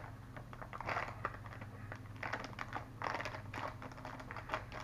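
Plastic snack bag of peanuts being handled, crinkling quietly in short bursts with small clicks.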